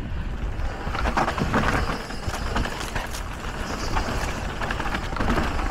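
Electric mountain bike riding downhill on a dirt trail: tyres rolling over dirt and stones, with the bike's chain and frame rattling over the bumps and wind rumbling on the camera microphone.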